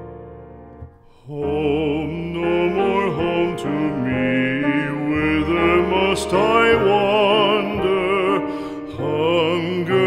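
Classical art song: soft piano chords fade, then about a second in a singer with wide vibrato comes in over the piano accompaniment.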